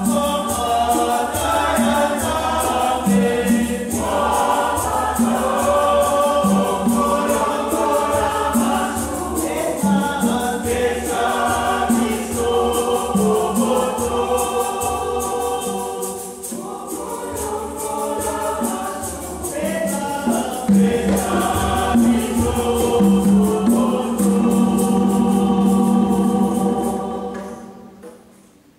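Mixed choir singing a gospel song to conga drums and a shaker keeping a steady beat. The song ends near the close and the sound dies away.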